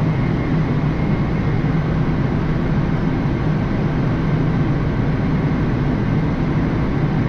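Steady airflow and engine noise on a Boeing 787 flight deck during final approach, with a low hum and a faint steady high whine.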